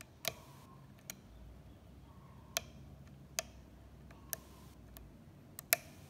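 Lock-picking tools working the pins of an American Lock 1100 padlock: a hook pick and tension wrench in the keyway making small, sharp metallic clicks, about seven of them at irregular intervals, the loudest near the end.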